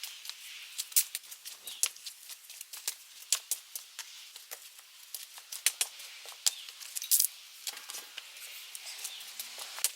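Irregular sharp clicks and snips with light rustling, the sounds of hands-on garden work such as cutting or handling plants and pots.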